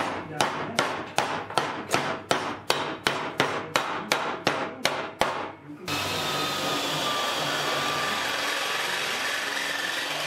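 A hammer tapping on a metal block in an even rhythm, about three strikes a second, stopping about six seconds in. A steady hiss-like noise follows.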